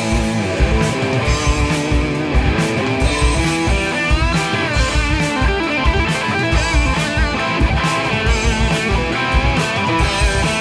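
Instrumental rock music: an electric guitar plays a melody over a drum kit keeping a steady beat.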